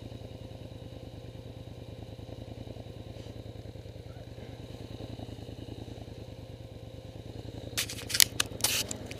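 Tracked ATV (quad bike) engine running steadily with an even low pulse. Near the end a burst of sharp, loud clicks and knocks, handling noise on the camera as it is moved.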